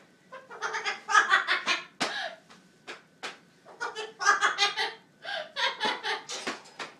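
Double yellow-headed Amazon parrot mimicking human laughter, in three bouts of quick 'ha-ha' syllables with short pauses between them.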